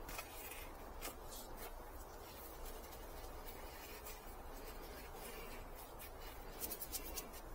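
Faint scratching and rustling of gloved hands pressing and spreading a gritty potting mix of sand, peat moss and soil in a plastic pot, with scattered small clicks and a busier patch near the end.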